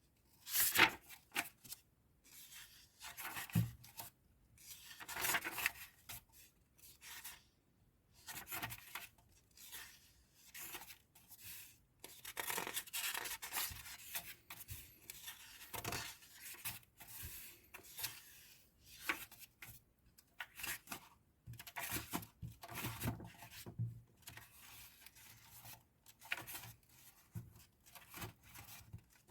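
Paper book pages being turned one after another: a series of dry rustles and swishes, each a page sliding and flipping over, some short and some drawn out, with short pauses between them.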